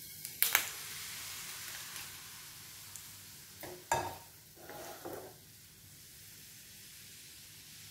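Pancake batter sizzling in hot cooking oil as it is poured onto a non-stick pan. The sizzle starts sharply about half a second in and slowly dies down, with a few knocks of cookware around four to five seconds in.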